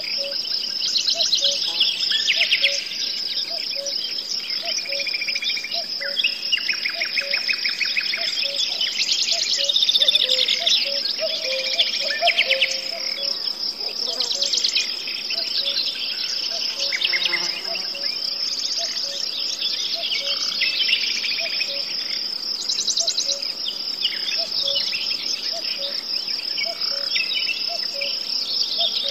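Steady high-pitched chirring of insects, with several songbirds singing short phrases over it. A short low note repeats about once a second through most of it.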